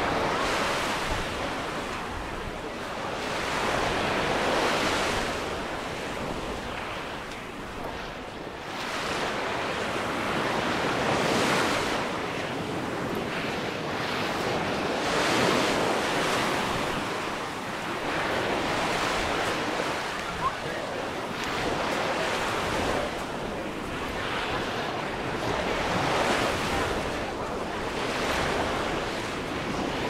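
Small sea waves breaking and washing up a sandy shore, swelling and fading every few seconds, with wind on the microphone. A single brief click about two-thirds of the way through.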